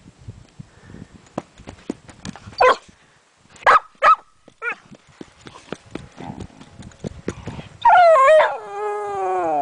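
A dog gives four short barks, then near the end lets out a long howl that wavers and then slides down in pitch.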